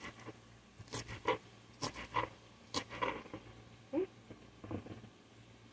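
Small kitchen knife chopping green onion on a wooden cutting board: a run of short sharp taps, roughly two a second, that stops about five seconds in.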